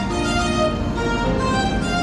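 Background music: a melody of held notes on violin or bowed strings.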